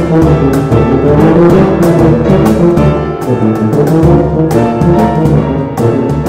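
Two tubas playing together with piano and cajon accompaniment: low held and moving brass notes over piano, with sharp cajon strikes throughout.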